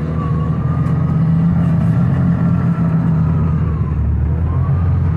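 Vehicle engine running steadily as it is driven through snow, with a faint whine that rises and falls.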